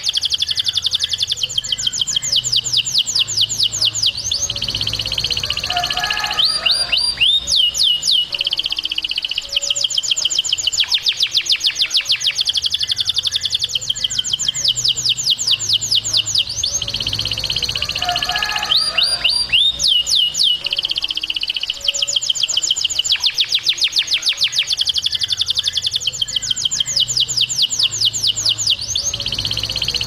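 Male canary singing: long, fast trills of rapidly repeated high notes, broken every ten seconds or so by a few quick sweeping whistles.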